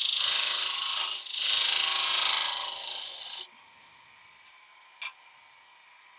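A tool scraping and cutting against wood spinning on a lathe, in two long passes that stop about three and a half seconds in. The lathe then runs on quietly, with a single click about five seconds in.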